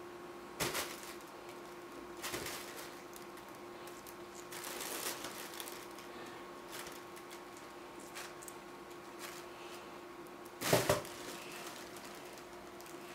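Fabric cat tunnel rustling and crinkling in short bursts as cats play in and around it, the loudest burst about eleven seconds in. A faint steady hum runs underneath.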